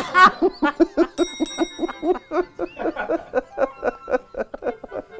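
Two men laughing hard: a long run of quick 'ha-ha-ha' bursts, about four to five a second.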